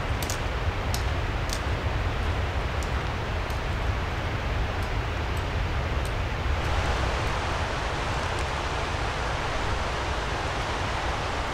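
Wind rumbling on the microphone over a steady outdoor hiss, with scattered short high ticks in the first half. About two-thirds of the way in it changes to the even rush of a small mountain stream flowing over rocks.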